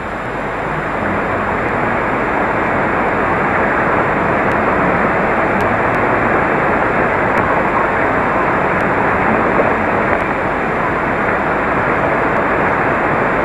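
Steady static hiss from an HF radio receiver tuned to the 11-metre band around 27.590 MHz: open-channel band noise while listening for a reply, with no voice coming through. It swells slightly over the first couple of seconds.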